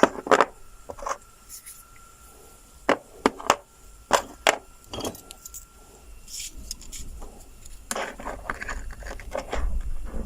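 Scattered light metallic clicks and clinks as small steel parts, an old and a new steering-column ball bearing, are handled and set against each other, with a denser run of clicks near the end.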